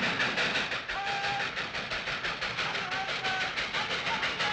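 Steam locomotive running at speed, its exhaust and running gear making a rapid, even beat of about five a second. A few brief high tones sound faintly over it in the middle.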